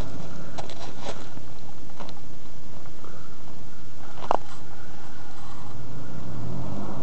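Nissan Patrol 4x4's engine running on a steep snow climb, its pitch rising near the end as it is revved, with a few sharp clicks, the clearest about four seconds in.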